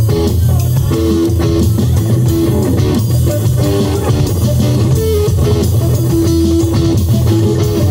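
Live rock band with two electric guitars playing over a steady, loud bass line, guitar notes held and ringing.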